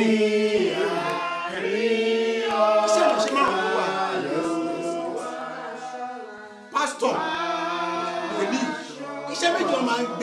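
Unaccompanied hymn singing, a man's voice leading with other voices joining in, in held sung phrases with a short break about two-thirds of the way through.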